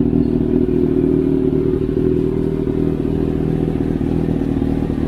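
Kawasaki Ninja ZX-6R's inline-four engine idling steadily through an SC Project slip-on muffler, with no revving.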